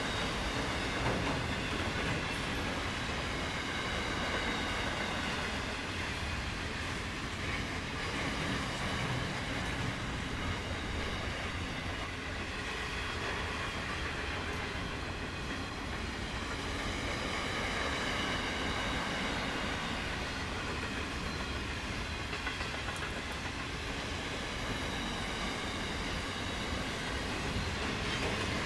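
Steel-carrying flat wagons of a long freight train rolling past, a steady rumble of steel wheels on rail that stays level throughout.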